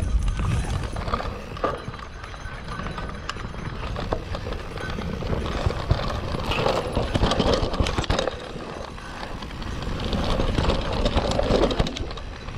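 Mountain bike riding down a dirt forest trail: tyres rolling over dirt and roots with a busy clatter of the bike's chain and frame rattling over the bumps, louder about six seconds in and again near the end.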